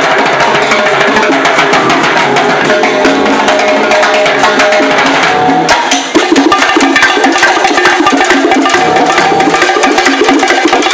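Live salsa band playing loud and continuous, with timbales, cymbals and bongos prominent in the mix.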